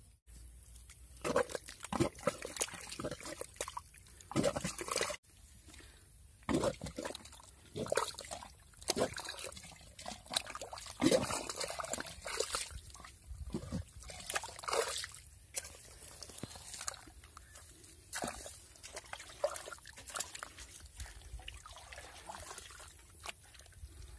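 A hand and forearm squelching and sloshing in a water-filled mud hole, groping for an eel in its burrow: uneven wet splashes, some loud, with trickling water between them.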